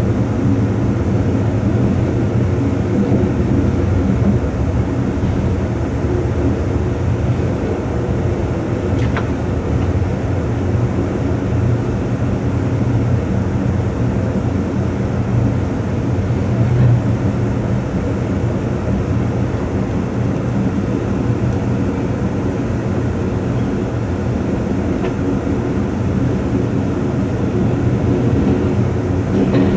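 Amtrak Coast Starlight passenger train running through a tunnel, heard from the rear of the train: a steady rumble of wheels on rails.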